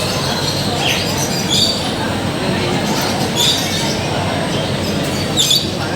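Busy hall ambience with a steady background of crowd noise and faint chatter, broken by short high-pitched squeaks about four times.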